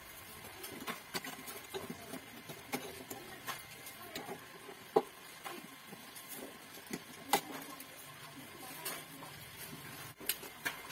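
A screwdriver clicking and scraping against the metal burner ring of a Modena built-in gas hob as the ring is pried loose, with irregular small taps and knocks and a couple of sharper, louder ones about halfway through.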